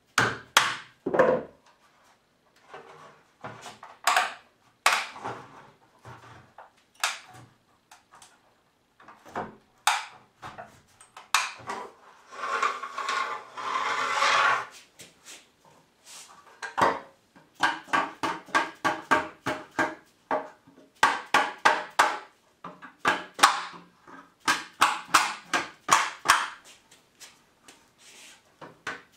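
A bamboo culm being split lengthwise with a knife driven by a plastic-headed mallet: sharp wooden knocks, scattered at first, then in quick runs of several a second in the second half, with a longer rasping stretch near the middle.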